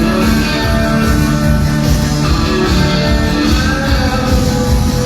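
Rock and roll music played loud through a sonidero sound system.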